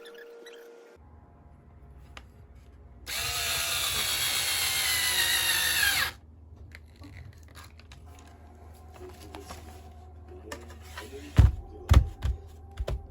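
Power drill running for about three seconds, its whine dropping slightly in pitch, then stopping abruptly. Near the end there are two or three sharp knocks.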